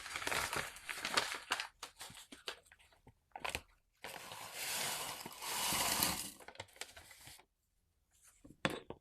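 Dried herbal medicine being ground and crushed, with crunching and crackling. It starts dense, thins to scattered clicks, runs as a steadier grinding stretch in the middle, then pauses before one short burst near the end.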